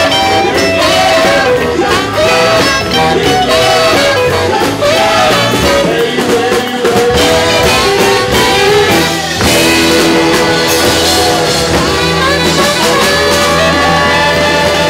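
Live jump-swing band playing: a saxophone section, electric guitars, drum kit and keyboard, with a man and a woman singing together.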